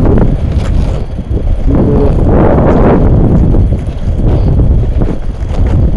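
Wind buffeting the microphone in a heavy low rumble, with swells of rustling from dry sunflower stalks and leaves brushing past.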